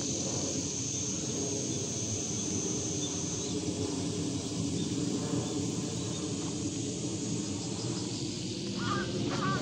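Crows cawing a few times near the end, over steady outdoor background noise with a thin high steady whine in the first few seconds.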